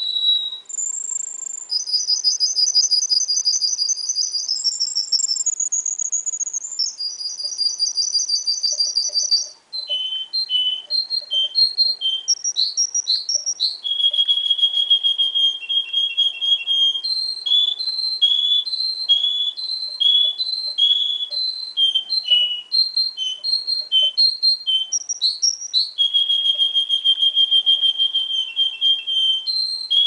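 Juvenile Russian singer canary singing a continuous song of rapid trills and rolls. For the first several seconds the rolls are high and even. After that come choppier, quick-repeating notes, with long, even lower rolls around the middle and again near the end.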